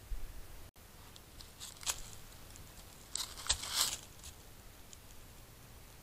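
Dry fallen leaves crunching and rustling as a white-tailed deer moves and forages close to the trail camera: a short bout about two seconds in, then a longer, louder one between three and four seconds.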